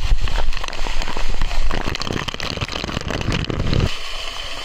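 Falling water and spray pattering and crackling close on the microphone, over a low wind rumble that drops away near the end.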